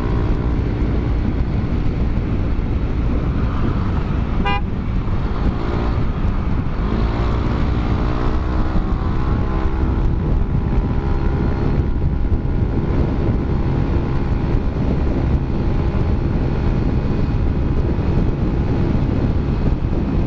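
Yamaha NMAX 155 scooter's single-cylinder four-stroke engine running through a Rob1 Racing aftermarket exhaust while riding, the engine note easing off around four to six seconds in and climbing again as the throttle opens. A short high toot sounds about four and a half seconds in, over a constant low rumble of road and wind noise.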